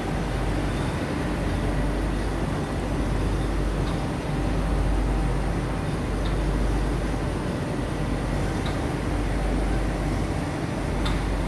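Steady low rumble and drone of printing-plant machinery running, with a few faint ticks scattered through it.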